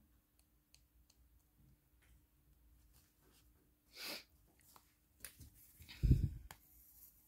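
Quiet handling sounds of hand embroidery: a few faint clicks, a short rasp about four seconds in, and a dull thump with small knocks around six seconds in, over a faint steady hum.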